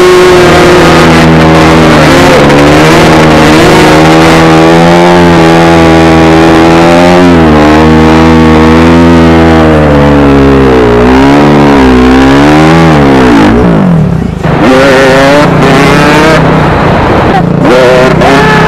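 Enduro dirt bike engines, among them a KTM EXC 200 two-stroke, revving and running, the pitch rising and falling over and over as the throttle is worked. About three-quarters of the way through, the pitch falls sharply and the sound dips for a moment before the revving picks up again, over a steady low engine note underneath.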